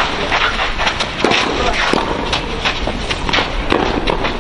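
Tennis play on a clay court: a series of irregular sharp hits and shoe scuffs over a steady low rumble.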